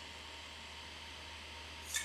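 Quiet steady hiss of room tone with a low hum while cherry tomatoes are peeled by hand over a steel bowl of water, and one short sharp click near the end.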